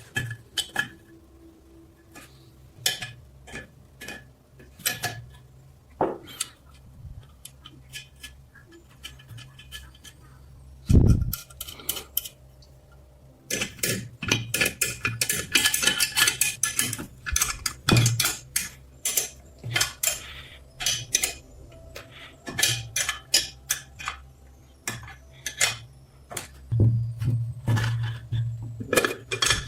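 Small metal parts clinking and tapping against one another and a hard surface in quick, irregular strikes, with one dull thump about eleven seconds in and a dense run of clinking shortly after.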